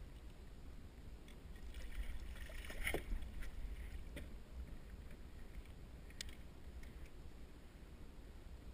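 Water splashing as a catfish is scooped into a landing net beside a kayak, loudest about three seconds in, then two sharp knocks a couple of seconds apart, over a low steady rumble.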